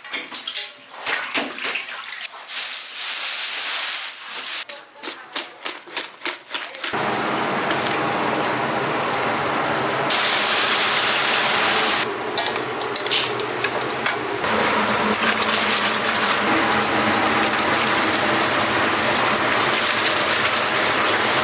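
A run of sharp, quick knocks and clicks for several seconds, then from about seven seconds in the steady, loud sizzle of chicken deep-frying in a cauldron of hot oil.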